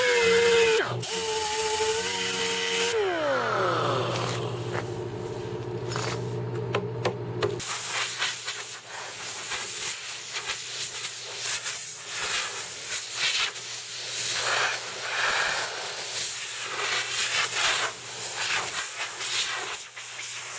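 Electric power sander running on a Bondo-filled fiberglass keel patch, whining down in pitch about three seconds in as it is switched off. A low hum holds for a few more seconds, then gives way to a rough hiss with many short scratchy strokes, like sanding by hand.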